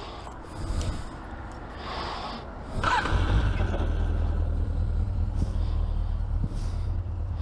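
Heavy breathing picked up by a lavalier mic inside a motorcycle helmet, then a short squeak about three seconds in, after which a steady low rumble from the Suzuki GSX 750 motorcycle comes in louder and holds.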